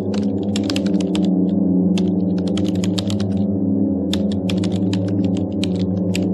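Computer keyboard being typed on: keys clicking in three quick runs with short pauses between them, over a steady low drone.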